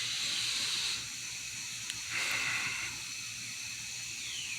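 Lawn sprinklers spraying water, a hiss that swells and fades.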